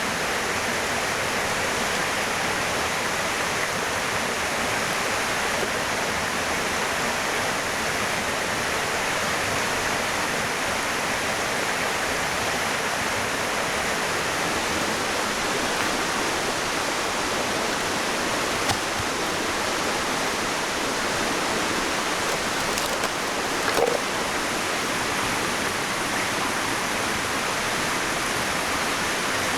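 Steady rushing of flowing water, with a few faint clicks about two-thirds of the way through.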